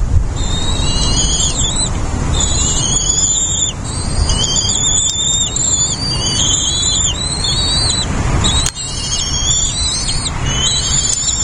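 Birds calling: an unbroken run of high, wavering chirps, several voices overlapping, over a low wind rumble on the microphone. A brief knock about nine seconds in.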